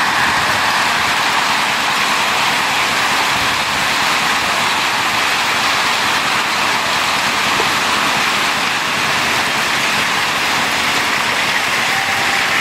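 Heavy rain pouring down on a flooded street: a steady, dense hiss.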